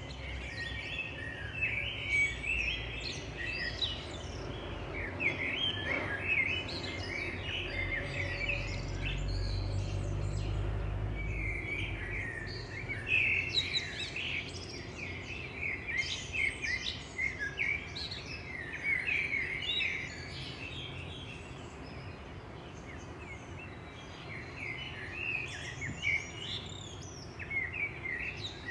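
A chorus of several songbirds singing and chirping over one another, thinning out for a few seconds past the middle. A low rumble swells and fades in the middle.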